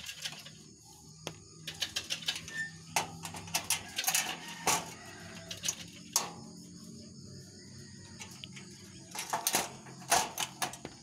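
Scattered light clicks and rattles of wire rabbit cages being handled, with a quick run of clicks near the end as a wire hook latch on a cage door is worked. A faint steady low hum runs underneath.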